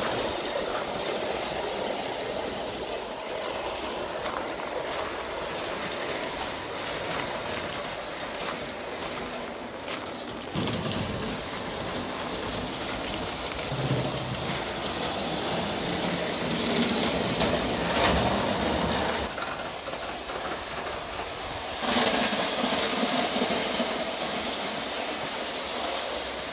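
Aster JNR C57 live-steam model steam locomotive and its coaches running along the track, with a steady rolling sound of wheels on rail. It grows suddenly louder twice, about ten seconds in and again later on.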